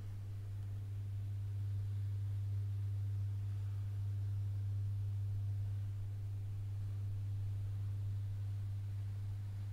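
A steady low hum, the loudest sound throughout, with kinetic sand faintly crumbling as a plastic scoop cuts through it.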